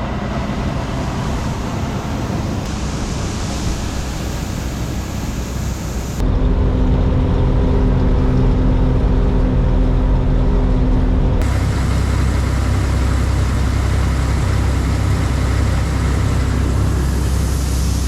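Tractor engine running steadily, heard across several cut-together clips. In the middle stretch a steady engine hum stands out over the low rumble.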